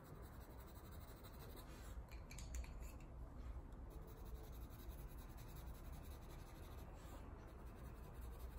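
Colored pencil shading on sketchbook paper: a faint, steady scratching of the pencil tip on the paper.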